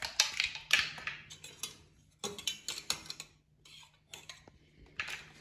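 Light clicks and clinks of kitchen utensils and dishes being handled on a counter: a quick run of sharp taps through the first three seconds and another near the end.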